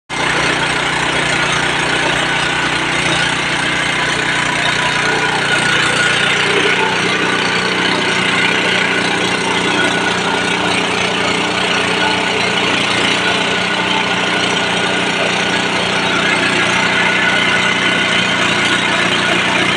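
Mini rice milling machine running: a loud, steady mechanical drone with a hiss. The lowest hum thins out about five seconds in.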